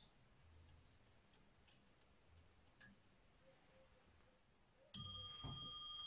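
Parrot Frères mantel clock, about 1880, striking once on its small bell about five seconds in: a single very fine ring that rings on and slowly fades. Faint clicks come before it.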